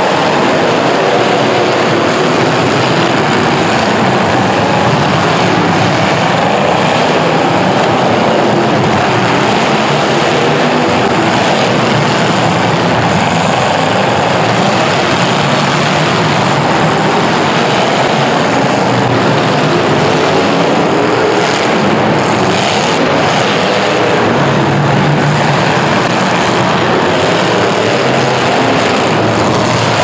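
A pack of demolition derby car engines running hard and revving together, a loud continuous din.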